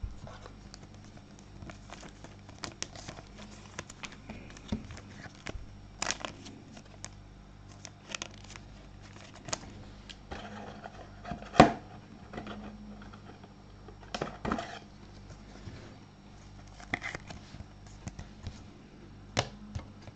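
Trading card packs and cards being handled: wrappers tearing and crinkling, cards scraping and clicking in scattered bursts, with one sharp knock about halfway through.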